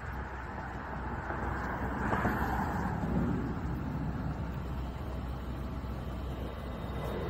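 Jet noise of an Embraer ERJ-145 regional jet climbing out overhead on departure: a steady rush that swells about two seconds in.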